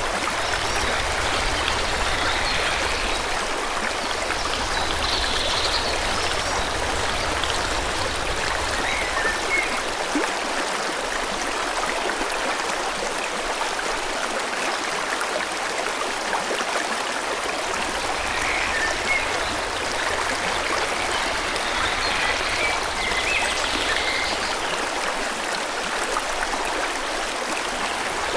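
Forest stream flowing steadily with an even rushing and babbling of water, and small birds chirping briefly now and then over it.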